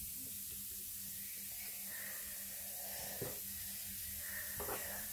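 Glittery slime being squished and stretched by hand, with a few faint sticky pops about three and about four and a half seconds in, over a steady hiss.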